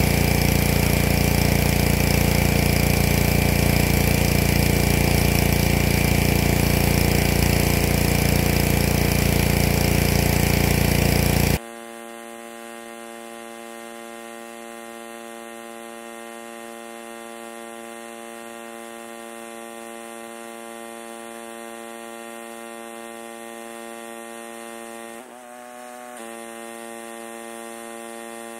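Pressure washer running and spraying, a loud steady rush of noise, which cuts off suddenly about twelve seconds in. A steady machine hum remains, dipping briefly in pitch near the end.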